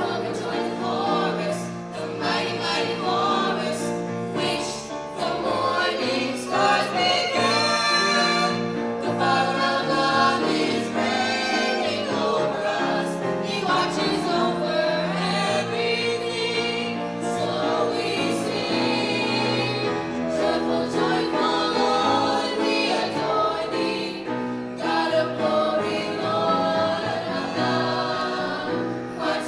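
High school choir singing a holiday piece, many voices holding and moving between sustained notes.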